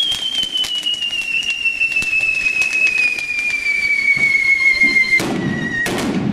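Festival fireworks: a rapid, irregular crackle of firecracker bangs under a long whistle that falls slowly and steadily in pitch for about five seconds before cutting off. A louder, denser burst of bangs follows near the end.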